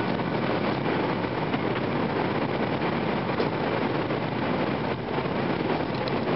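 Steady running noise of an N700 series Shinkansen train, an even rush heard inside the passenger cabin.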